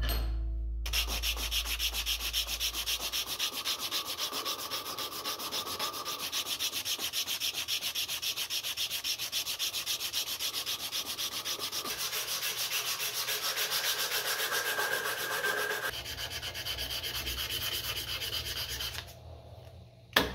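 A strip of sanding cloth is pulled back and forth, shoe-shine style, over a carved maple lure body to round it, in quick, even rasping strokes. The sanding stops a second or so before the end, followed by a single sharp click.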